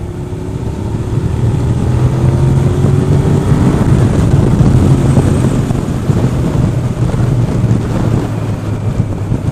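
Loud wind rushing over a motorcycle helmet and microphone, growing louder over the first few seconds as the bike is opened up and accelerates. A faint engine note rises underneath it.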